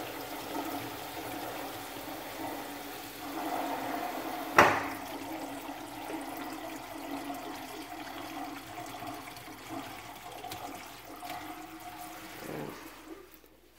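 Water from a filled bathroom sink draining steadily down through a newly installed pop-up drain and plastic P-trap, fading out near the end. A single sharp knock about four and a half seconds in.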